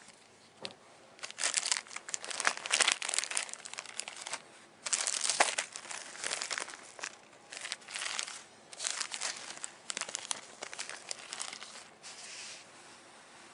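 Packaging crinkling and rustling as it is handled, in repeated irregular bursts that start about a second in and die away near the end.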